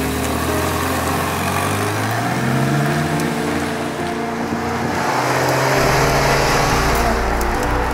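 Ferrari California's front-mounted 4.3-litre V8 engine accelerating: its pitch climbs, drops about four seconds in, and the engine gets louder toward the end.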